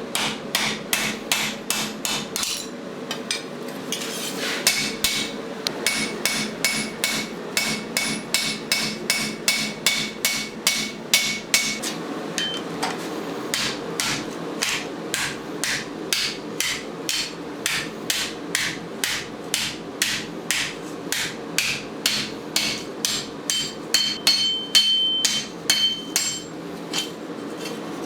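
Steel being hand-forged: a hammer strikes a lawnmower blade in a steady rhythm of about three blows a second, with a couple of short pauses. A high ringing note hangs under the blows in stretches.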